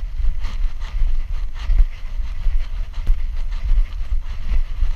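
Wind buffeting a GoPro strapped to a walking Doberman's back, a heavy low rumble, with irregular knocks and rustles about twice a second as the harness-mounted camera jostles with the dog's stride.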